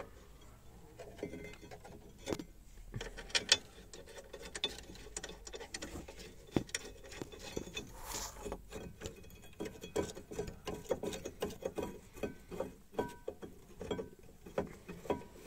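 Irregular small metallic clicks and knocks as a rear brake caliper carrier is fitted over a new brake disc and its bolts are started by hand, with a brief scrape about eight seconds in.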